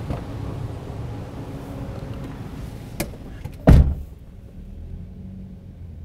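A taxi's rear car door being opened and shut: a sharp click of the latch about three seconds in, then a loud thud as the door slams closed just after, over a steady low rumble of the waiting car.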